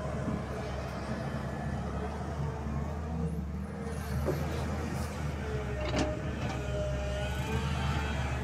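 SANY crawler excavator's diesel engine running steadily as it digs and swings soil, with a few thin tones shifting in pitch over the engine hum. A sharp clank about six seconds in, with a smaller one just before.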